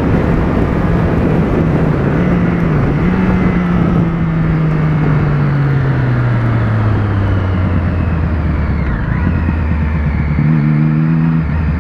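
Motorcycle engine heard from the rider's seat, with wind rushing over the microphone. The engine note holds steady at cruise for a few seconds, then falls smoothly as the bike slows, and a brief higher note comes near the end.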